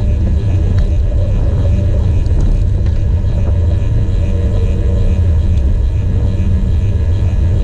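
Wind buffeting an action camera's microphone on a moving bicycle, with tyre rumble on tarmac: a loud, steady, deep rumble.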